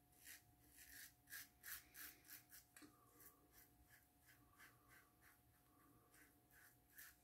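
Safety razor blade scraping through lathered stubble on the neck in short, quick strokes, faint. A quick run of strokes, a pause in the middle, then more strokes near the end.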